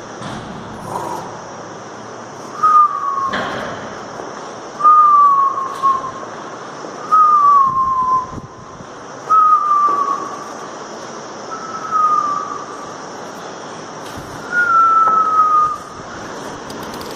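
A whistled note sliding downward, repeated six times about two seconds apart, each lasting under a second. A single thump about three seconds in.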